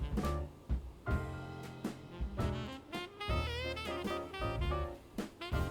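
Background jazz music: saxophone melody with bass and drums.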